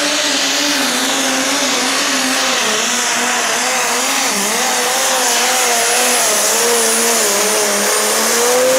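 Single-turbo diesel engine of a Pro Stock pulling tractor running flat out under heavy load as it drags the weight sled. The engine note wavers up and down as it labours and rises a little near the end.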